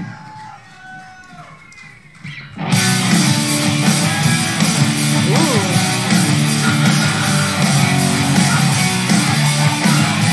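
Live rock band playing, led by distorted electric guitar. After a quieter lead-in, the full band comes in loud and dense about three seconds in, with a punk-like opening.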